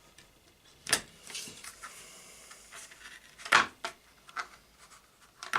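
Craft knife cutting slots through a backing board: a few sharp taps and clicks with light scraping. The loudest tap comes about three and a half seconds in.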